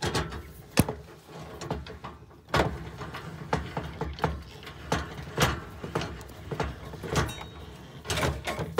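Irregular metallic clicks and clunks from the F-150's underbody spare-tire winch as it is cranked down with the jack extension rod, paying out more cable.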